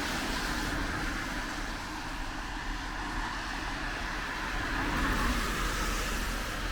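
Cars passing on a rain-wet road: a steady hiss of tyres on wet asphalt with low engine rumble, swelling slightly about five seconds in.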